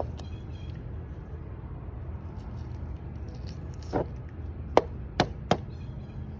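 Four short, sharp knocks, starting about four seconds in and coming in quick succession while a catfish is being cleaned, over a steady low rumble.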